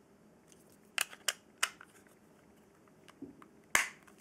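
Hard plastic clicks and taps as a VIOFO A119 dash cam and its plastic wedge windshield mount are handled and fitted together: three sharp clicks about a second in, a duller knock past three seconds, and the loudest click near the end.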